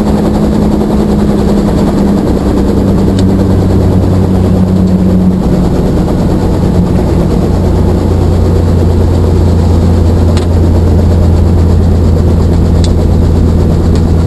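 Helicopter engine and rotor running, heard from inside the cabin: a loud, steady low hum that grows a little louder about halfway through.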